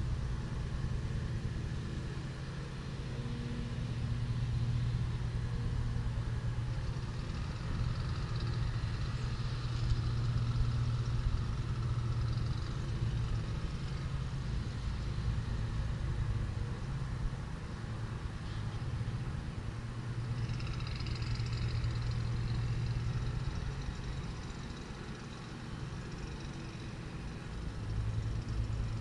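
Diesel engine of a Freightliner Columbia semi-truck running, its low note swelling and easing off several times.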